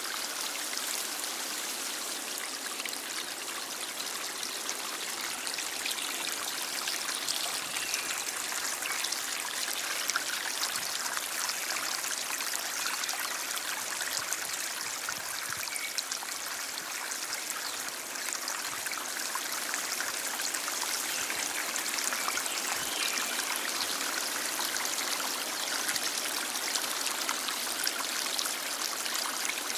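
A stream flowing steadily: an even rush of running water with fine trickling and splashing, and little deep rumble.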